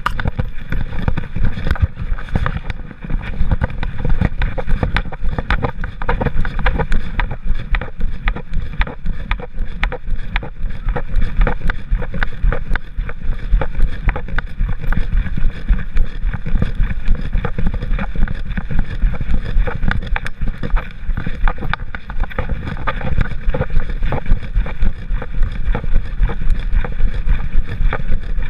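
Handling noise from a GoPro camera strapped to a walking dog's back: the housing and mount rub and knock against the curly fur and harness with every step, over a low rumble of wind on the microphone.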